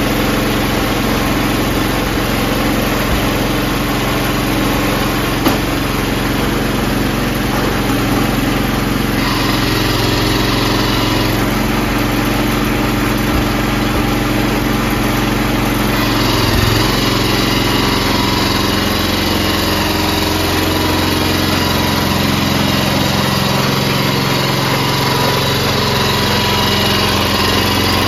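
Craftsman Trac-Plus snowblower's 5.5 horsepower Tecumseh horizontal-shaft four-stroke engine running steadily. Its note shifts about two-thirds of the way through.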